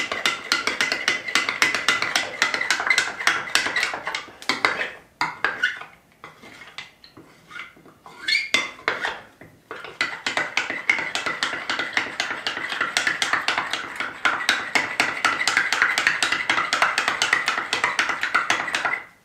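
Metal teaspoon clinking rapidly against the inside of a drinking glass, several strikes a second, while stirring pudding powder into cold milk to keep it from going lumpy. The stirring pauses about five seconds in and picks up again about ten seconds in.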